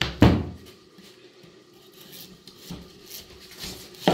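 Large kitchen knife chopping through a wedge of hard, cold pumpkin and knocking down onto a wooden board: a sharp knock just after the start and another at the end, with quieter cutting and scraping between.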